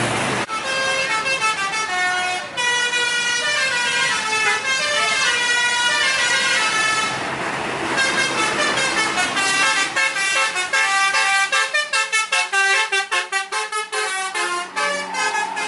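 Tourist bus 'telolet' horn, a multi-tone horn playing a tune of stepped notes. It breaks off briefly about seven seconds in, then plays a fast run of short clipped notes near the end.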